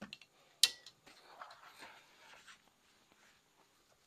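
Soapy wash sponge rubbing and scrubbing over wet car bodywork in short, faint strokes, with one sharp click a little over half a second in.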